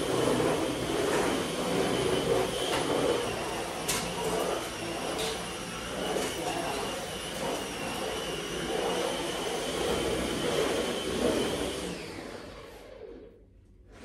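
Stick vacuum cleaner running with a steady high whine over a rushing suction noise that swells and eases as it is worked across the floor. It fades out near the end.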